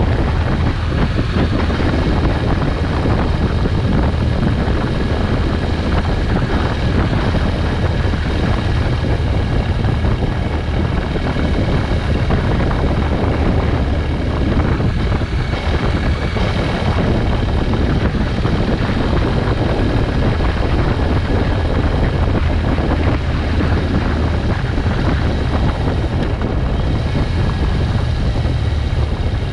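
Motorcycle running at a steady cruise, a low engine drone mixed with wind noise on the microphone.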